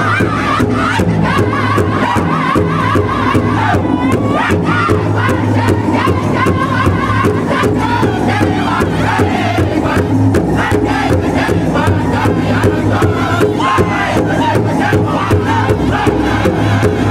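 A powwow drum group singing in high voices together while striking a steady, even beat in unison on one large hide-covered drum, with women's voices joining the song.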